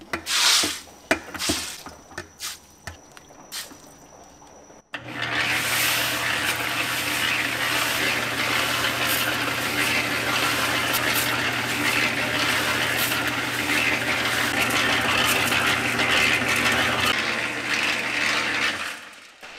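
A few knocks and clatters of handling, then about five seconds in a small electric drum mixer comes in suddenly, its motor humming steadily while dark fish-feed pellets tumble and slide around inside the turning drum as they are coated with a blended yellow liquid. The tumbling stops shortly before the end.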